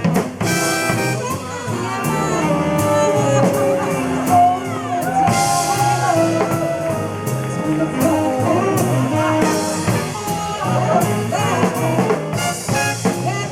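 Jazz music with brass horns and saxophone playing over a steady drum-kit beat.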